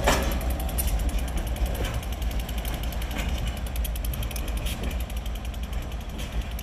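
Freight train's last car, a lumber-loaded centerbeam flatcar, rolling past and away: steel wheels clacking on the rails in a handful of sharp knocks, the loudest right at the start, over a steady low rumble that slowly fades.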